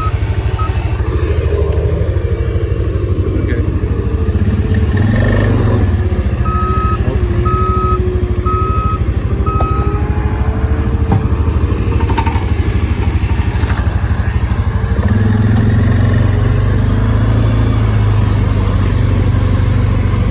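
A vehicle engine running steadily, with a reversing alarm beeping about once a second for a few seconds in the middle. The engine gets louder about three quarters of the way through.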